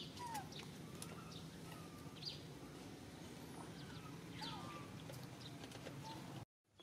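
Scattered short, high chirping and squeaking animal calls, some rising and falling, over a steady low hum; the sound cuts out abruptly near the end.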